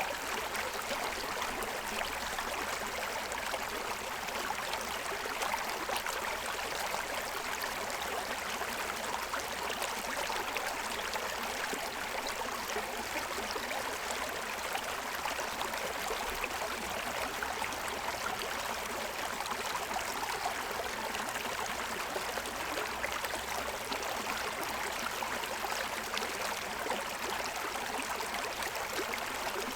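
Stream water running and splashing over the stones of its bed in a steady, even rush.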